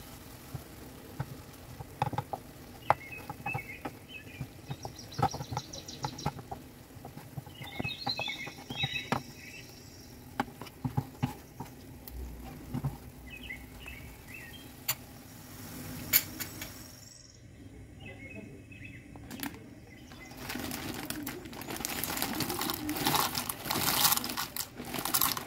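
Wooden spoon stirring ground beef into a thick tomato sauce in a pan, with many small clicks and scrapes against the pan. Near the end, dry farfalle pasta is poured into a pot of boiling water: a loud rushing, bubbling hiss.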